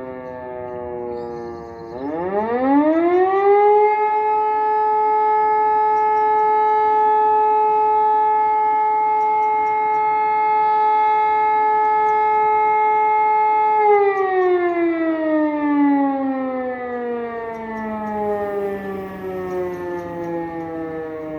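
Hörmann E57 mechanical siren on a test alarm. A falling tone dies away, then the siren winds up sharply about two seconds in and holds a steady howl for about ten seconds. Near the middle it begins a long, slow wind-down in pitch.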